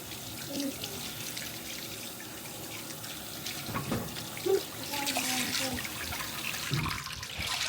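Water running steadily from a bathroom sink tap, with a couple of soft knocks about four and seven seconds in.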